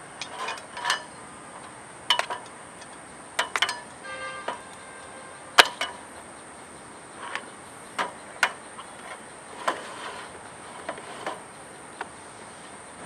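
Irregular sharp clicks and knocks as a hose regulator is screwed onto a camping gas canister and the canister and fittings are handled on a metal table. About a dozen separate clicks, with a short rattling run a few seconds in.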